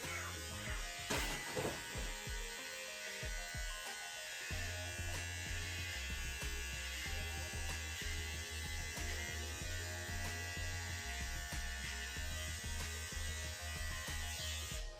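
Small electric motor buzzing steadily, its low hum getting stronger about four and a half seconds in, with music playing underneath.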